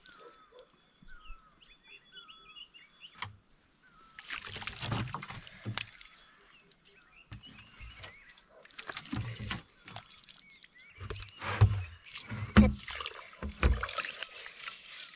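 Water being poured and sloshed in a vessel, in several irregular bursts: one about four seconds in, then more from about nine seconds on, with some low knocks among them.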